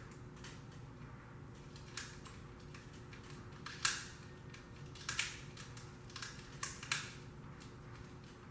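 Irregular small clicks and taps of hard parts as an accessory is fitted onto a compound bow's riser by hand, the sharpest about four seconds in and a cluster between five and seven seconds.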